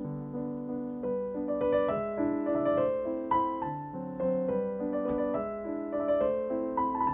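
Background piano music: a melody of single notes moving over held chords.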